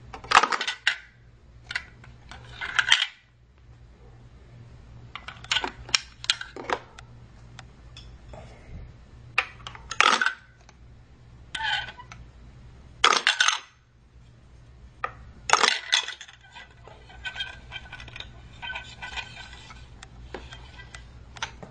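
Small hard toy pieces, toy trains and playset parts, clattering and clinking as they are handled, in irregular sharp bursts over a steady low hum. Near the end come lighter, ringing clinks.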